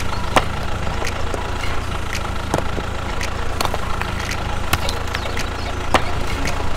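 Steady engine drone of a miniature toy tractor, with a constant whine, and scattered sharp clicks as its spiked roller passes over pebbles.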